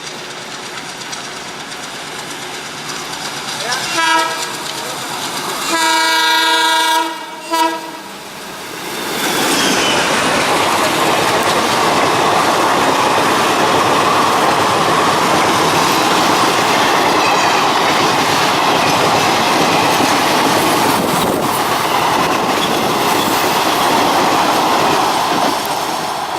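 Indian Railways WDM3D diesel locomotive sounding its horn at a level crossing: a short blast about four seconds in, then a long blast ending in a quick toot. About nine seconds in, the locomotive and its express coaches rush past at speed with a loud, steady roar and the clickety-clack of wheels on the rails.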